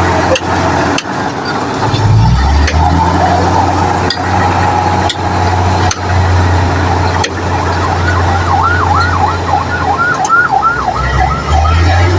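A steady low motor hum with scattered sharp clicks. From about two-thirds of the way in, a siren-like tone joins it, warbling up and down about three times a second.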